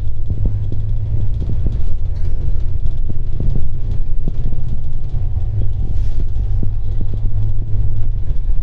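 Moving bus heard from inside the cabin: a steady low rumble of engine and road, with light rattling ticks scattered throughout.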